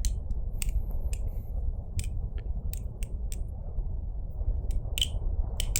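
Bite Blades Titan balisong being flipped, its aluminium handles swinging on the pivots and giving light clicks at uneven intervals, over a low steady hum.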